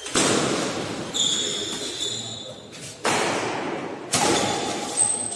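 Badminton rally: five sharp racket-on-shuttlecock hits, roughly a second apart, each ringing out in the reverberant hall. A brief high squeal comes about a second in.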